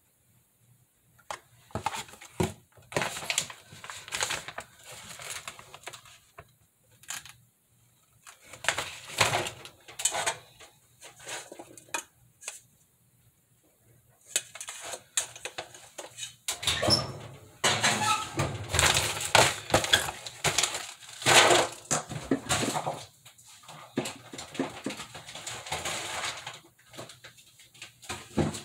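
Kitchen handling noises: cardboard food packaging rustling and crinkling, and a dark pan of breaded shrimp and sweet potato fries being handled with clatters and clicks, in irregular bursts with short pauses.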